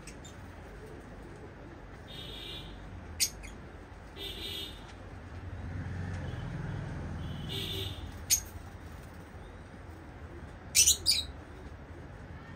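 Lovebirds calling: a few short, shrill chirps, two close together near the end, between three brief buzzy chatters. A low rumble runs in the background around the middle.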